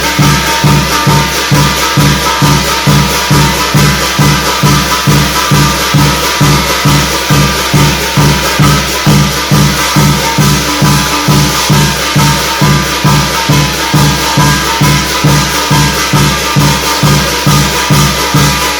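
Percussion music for a Korean shamanic gut ritual: a drum beating a fast, even pulse of about two and a half strokes a second under steady jingling, ringing metal percussion.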